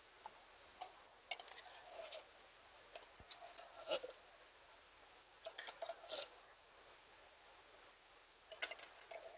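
Metal spoon scraping and clinking inside an opened tin can, in several short bursts of scrapes with a few brief squeaks, the loudest about four seconds in, as food is scooped out of the tin.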